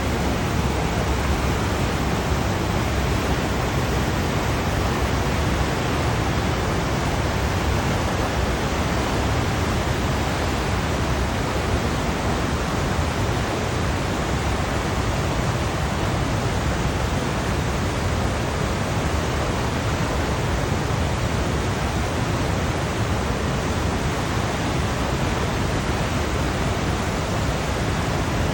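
Ocean surf as a steady, even rushing wash, with no distinct swells or breaks in loudness.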